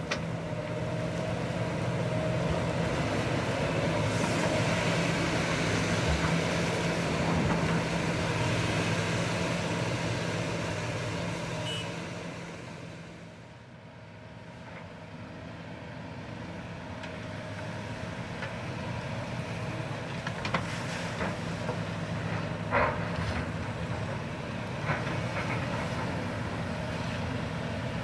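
Kobelco hydraulic excavator's diesel engine running steadily under load while it digs rock and gravel from a river bank, with several sharp knocks of stone on the bucket in the second half.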